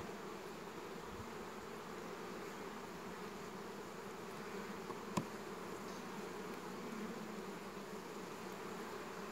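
Honey bees buzzing at an open hive: a steady, faint hum of many bees. A single short click comes about five seconds in.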